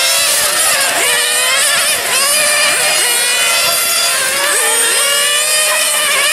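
Several small nitro glow engines of 1/8-scale 4x4 radio-controlled race cars running at high revs, overlapping one another. Their pitch rises as the cars accelerate and drops as they lift off for the corners, again and again.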